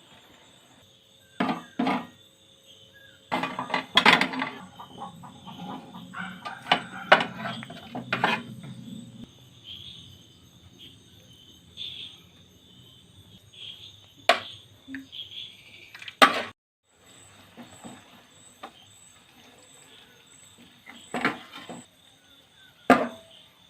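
Irregular clanks and clinks of metal cookware and utensils being handled in a kitchen, louder and busier in the first third, with a faint steady high-pitched tone behind.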